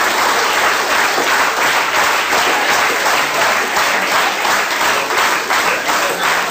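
Studio audience applauding, a dense even patter of many hands clapping.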